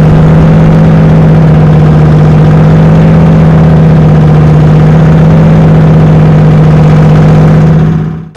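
Loud, steady car engine idling sound with a deep, even hum, fading out near the end.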